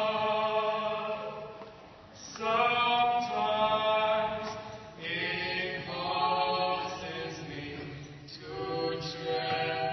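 Slow singing in long held notes. New phrases begin about two, five and eight and a half seconds in.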